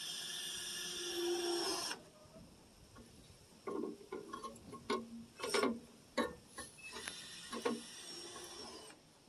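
Power drill running steadily for about two seconds and stopping abruptly, then a string of separate knocks and clicks, and a second, fainter run of the drill about three-quarters of the way through.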